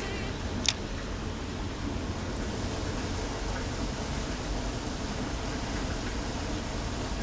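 Steady outdoor noise haze with one sharp click about two-thirds of a second in.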